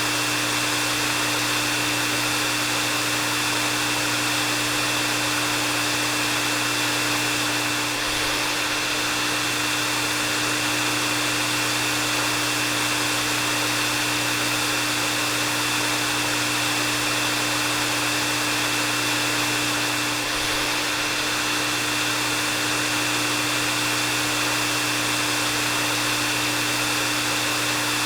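Hair dryer running steadily: an even rush of blown air over a constant motor hum, with a thin high whine held at one pitch.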